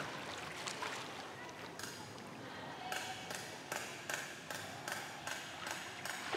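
Pool water splashing and sloshing as swimmers move through it. From about three seconds in, the splashes fall into a regular rhythm of roughly two or three a second.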